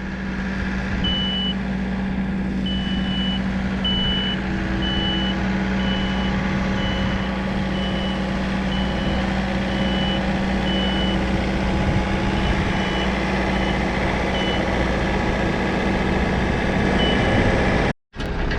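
Reversing alarm on a running farm vehicle beeping about once a second over a steady diesel engine drone, the beeps growing fainter towards the end.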